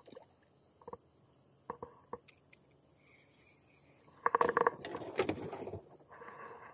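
Soft clicks and handling noise from a fishing rod and baitcasting reel as the bait is let down, with a louder rustling scuffle a little past the middle. A faint, steady high insect chirp repeats about four or five times a second behind it.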